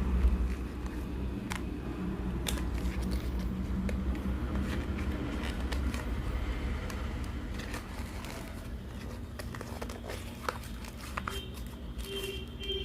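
A small earbud accessories box and its packaging being handled and opened, with scattered light crinkles and clicks, over a steady low background rumble.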